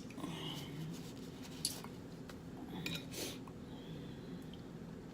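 Eating a seafood boil in sauce: a few sharp clicks and soft wet squishes as the shellfish and food are handled and chewed, over a faint steady low hum.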